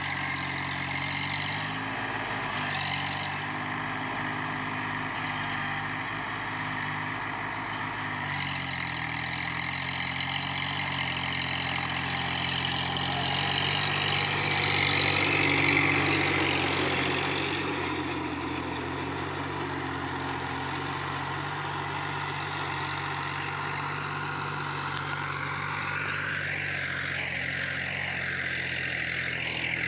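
Mahindra JIVO 365 DI compact tractor's three-cylinder diesel engine running steadily under load while pulling a rotary tiller through dry soil. It grows louder about halfway through as the tractor passes close, then fades as it moves away.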